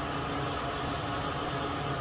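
Steady background hiss with a faint low hum, even and unchanging, like a small fan or air blower running.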